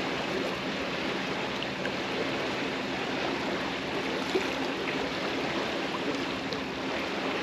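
Steady rushing noise of choppy water, with one brief knock about four seconds in.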